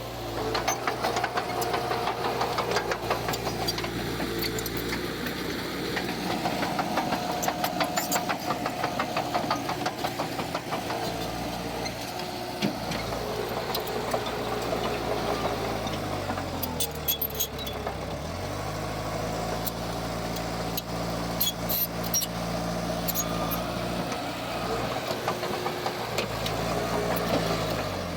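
Diesel engine of heavy earthmoving equipment working steadily, with frequent sharp clanks and rattles. About sixteen seconds in, the engine note drops and then climbs back up.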